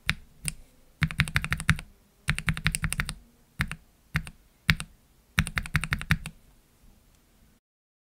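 Typing on an ai03 Vega mechanical keyboard with Gateron Ink Black V2 linear switches lubed with 205g0 and no switch films: single keypresses and quick runs of several strokes. The typing stops about half a second before the end.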